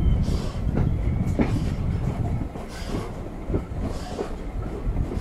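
Steam-hauled passenger train behind an Ivatt 2MT tank locomotive running along the line, heard from a carriage window: a steady low rumble of wheels on rail with regular beats about twice a second.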